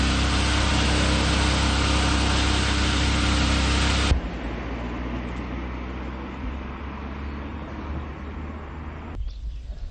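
Engine-driven orchard sprayer pump running steadily while the spray lance is in use on hazelnut trees. It cuts off abruptly about four seconds in, leaving a quieter outdoor background with a few bird chirps near the end.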